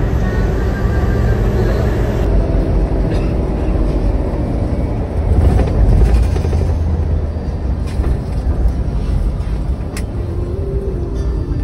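Hino AK8 bus's diesel engine running at speed with road noise, heard from inside the bus, a deep steady rumble that swells briefly about halfway through. A single sharp click near the end.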